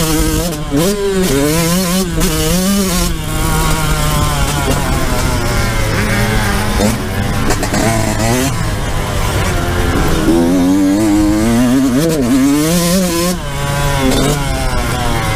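Yamaha YZ125 two-stroke single-cylinder engine being ridden hard, its pitch repeatedly climbing and dropping with throttle and gear changes.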